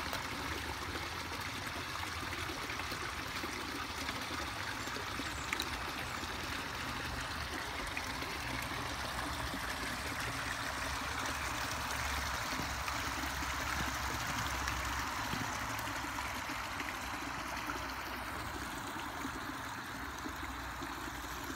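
Water trickling steadily into a garden goldfish pond.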